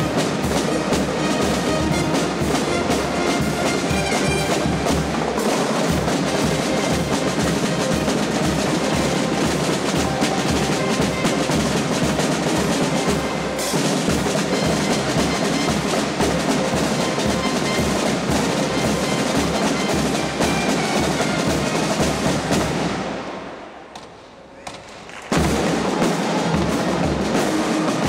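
Military band drummers playing a fast, continuous rhythm on snare and bass drums with drum rolls. The drumming fades away about 23 seconds in and cuts back in abruptly two seconds later.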